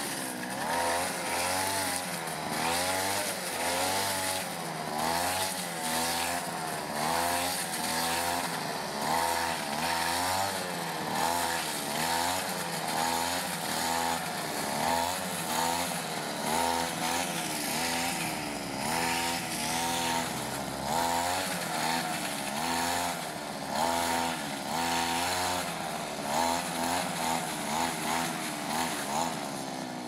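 Brush cutter's small engine running at high revs, its pitch rising and falling about once a second as it is throttled up and eased off while cutting tall grass.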